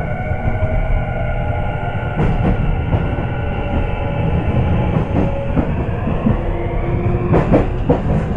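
Tokyu 5050-series train's Hitachi IGBT VVVF inverter and traction motors whining under way as the train accelerates: several tones climb slowly in pitch over a steady rumble. This is the Hitachi IGBT sound that rail-sound fans class as a "falling inverter". Rail joints click under the wheels about two seconds in, again around five seconds, and in a cluster near the end.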